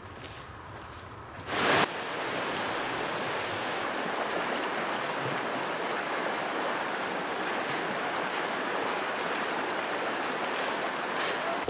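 Shallow, rocky river rushing steadily over stones. The first second and a half is quieter and ends in a brief loud burst, after which the even rush of water holds.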